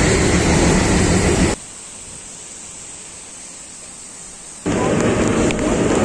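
Loud running noise and rumble of a passing train at close range, broken by a sudden drop about one and a half seconds in to a quieter steady hiss, then loud again near the end with a few sharp clicks.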